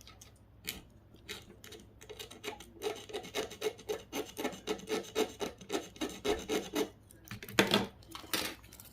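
Hand scraping at a gold-plated contact on an electronic part, testing whether the gold goes all the way through; the scraping exposes copper under the plating. A few scattered scrapes, then quick rhythmic strokes, about three a second, and two louder strokes near the end.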